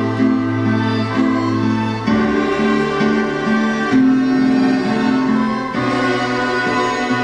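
Instrumental string music: sustained bowed notes changing every half second or so over a held low note.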